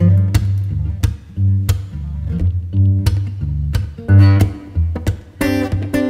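Background music: plucked acoustic guitar with low bass notes.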